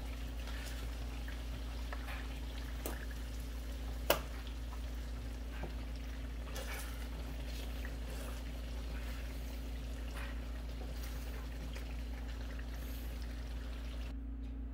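Green chili garlic oil sizzling and bubbling in a frying pan just taken off the heat, stirred with a spatula, over a steady low hum. A few light clicks and one sharper knock of the spatula on the pan about four seconds in.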